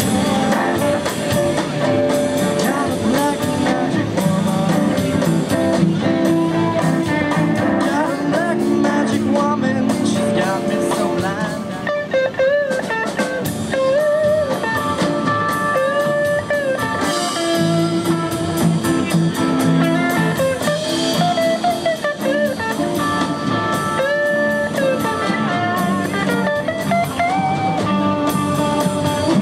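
Live rock band playing a blues number on electric guitar and drum kit, with singing in the first part. About halfway through, a lead electric guitar on a Stratocaster-style guitar takes a solo full of bent notes.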